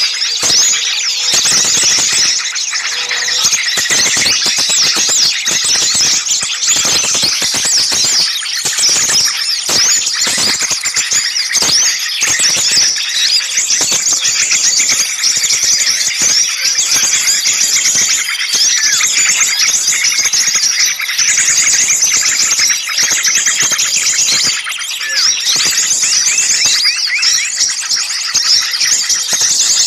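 Dense, continuous chorus of many small birds chirping and calling shrilly all at once, with rapid sharp notes overlapping without a break. It is a noisy bird-lure recording of agitated small birds, the sound trappers play to draw small birds in.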